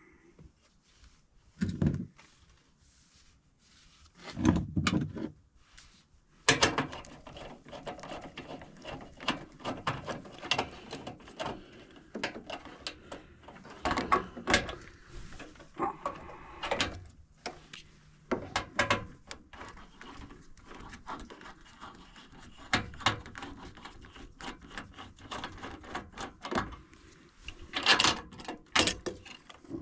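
Irregular clicks, knocks and rattles of hands working inside a furnace cabinet: wire connectors being unplugged and a control board being taken out. The louder knocks come about two seconds in, around five seconds in, and near the end.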